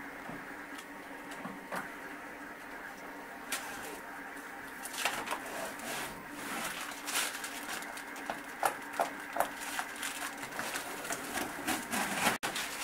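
Protective plastic film being peeled off a 3D printer's enclosure panels: irregular crackling and rustling that starts a few seconds in and gets busier toward the end, over a faint steady hum.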